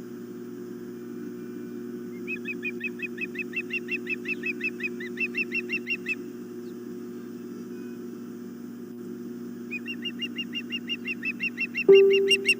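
Ospreys at the nest giving two long runs of rapid, high, whistled chirps, about five a second, over a steady electrical hum. A single sharp loud knock comes near the end.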